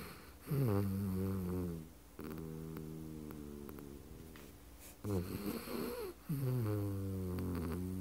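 Small poodle mix dog snoring loudly in its sleep. Each long droning snore opens with a quick drop in pitch, and quieter pitched breaths fall between them, over about two breathing cycles.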